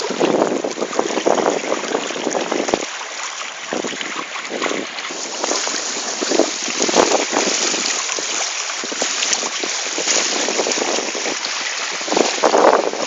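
Wind buffeting the microphone in uneven gusts over the rush and splash of water along a Hobie Cat catamaran's hulls while it sails.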